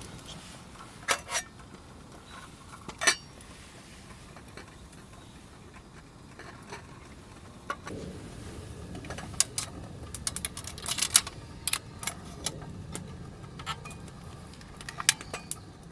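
Scattered sharp clicks and light metal clinks of camp gear being handled: a few isolated ones early, then a quick irregular cluster through the second half.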